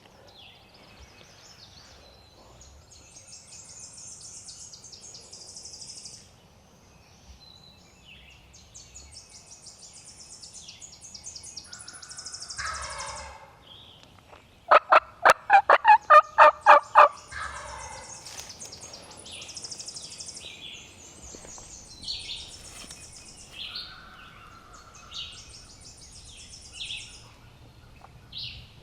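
Wild turkey gobbler gobbling once about halfway through, a loud, fast rattling run of notes, with songbirds trilling and chirping high in the background.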